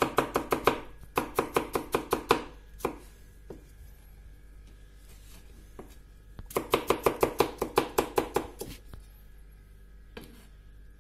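Chef's knife chopping cucumber into thin matchsticks on a wooden cutting board: quick runs of knife strikes, about eight a second, with a pause of a few seconds in the middle before another run.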